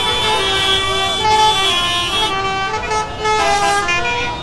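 Many vehicle horns honking at once, overlapping steady blasts at different pitches starting and stopping over one another.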